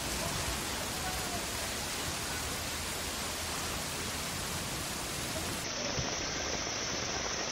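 Floodwater running fast down a street: a steady rush of churning water. About six seconds in it turns duller, losing its highest hiss.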